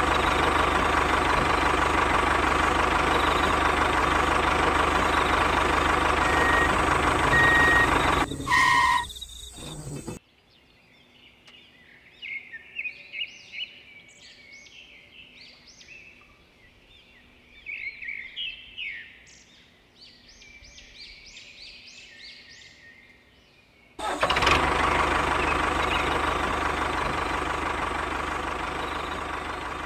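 A motor engine running steadily and loudly, cutting off about nine seconds in. Birds then chirp for about fourteen seconds, and the engine comes back suddenly near the end and slowly fades.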